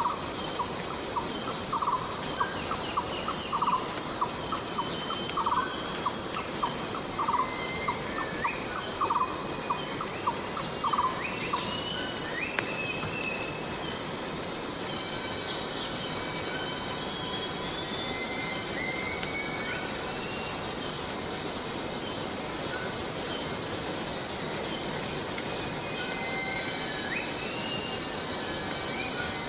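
Outdoor nature ambience: a steady high-pitched insect drone throughout, with a short pulsing call repeating about every second and a half up to about a third of the way in, and scattered short rising bird calls.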